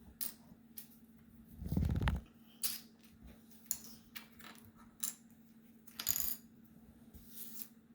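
Hard puzzle pieces clicking and clattering as they are handled and fitted into a map puzzle, in scattered taps, with a duller thump about two seconds in.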